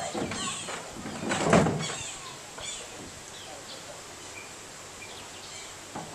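A green plastic box, tossed by a sun bear, lands and clatters on concrete about a second and a half in, with a smaller knock at the start; otherwise steady outdoor background noise.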